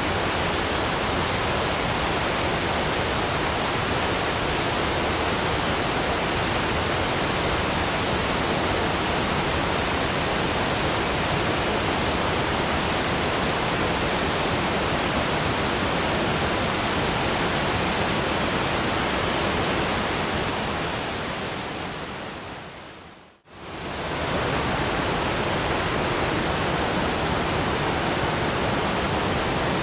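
Steady rushing noise from a relaxation noise track, even across low and high pitches. Past the two-thirds mark it fades down over about three seconds to a moment of silence, then swells quickly back to the same level, as at a loop or crossfade point.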